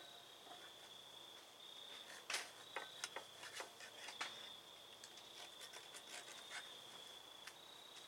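Knife and fork clicking and scraping on a plate while cutting food: scattered sharp clicks, the loudest about two seconds in and a cluster over the next two seconds. A steady faint high-pitched tone lies under them.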